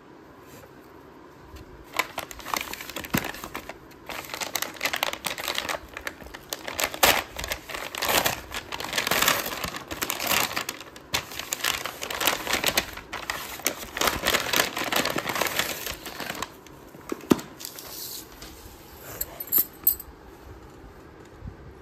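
Brown paper mailer bag crinkling and rustling as hands tear it open, in a run of bursts starting about two seconds in and easing off about three-quarters of the way through, followed by a few sharp clicks.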